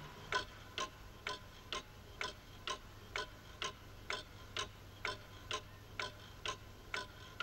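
Pendulum wall clock ticking steadily, a little over two ticks a second, as a cartoon sound effect.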